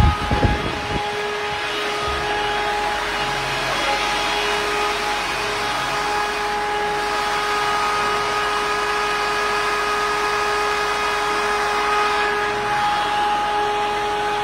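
A small motor running steadily, a constant drone with a whine in it; a few heavy low thuds in the first second.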